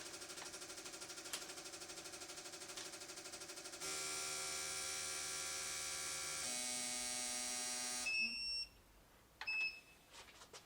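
Electronic buzzer of a digital torque wrench as a main cap nut is tightened to 20 ft-lb. It makes a fast pulsing buzz, then a steady tone from about four seconds in that steps lower in pitch and stops near eight seconds, followed by a few short high beeps. The steady tone signals that the set torque has been reached.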